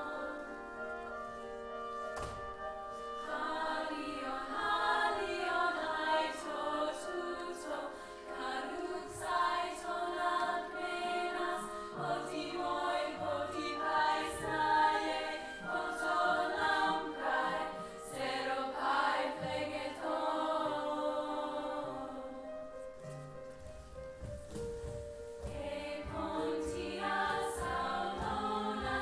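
A chorus of women singing together, with low sustained notes held beneath the voices from about halfway through; the voices thin out briefly near the end before coming back.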